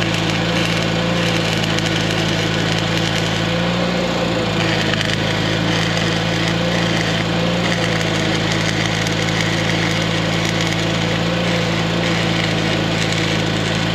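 Arc welding on steel pipe: a steady crackling hiss from the arc that holds evenly throughout. An engine runs steadily underneath.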